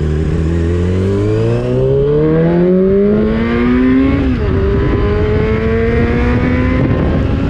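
Yamaha R6 inline-four sportbike engine under acceleration, its pitch climbing for about four seconds. The pitch drops sharply on an upshift, then rises again.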